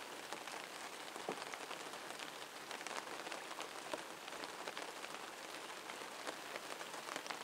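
Steady rain falling: an even hiss of many small drops ticking irregularly on surfaces.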